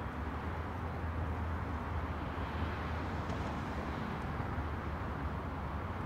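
Steady distant road traffic hum mixed with wind, with a low rumble underneath; it swells slightly in the middle, as a vehicle passes a little nearer.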